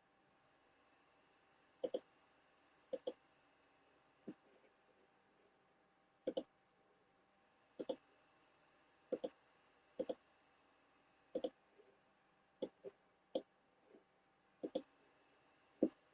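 Computer mouse clicking at irregular intervals, many of the clicks coming in quick pairs like double-clicks, over a faint steady hum.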